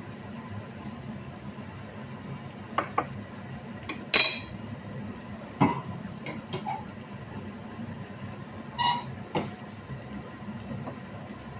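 Cooking utensils clinking and knocking against a frying pan and a small container while a thick tomato sauce is stirred: scattered clinks, the loudest about four seconds in, over a steady low hum.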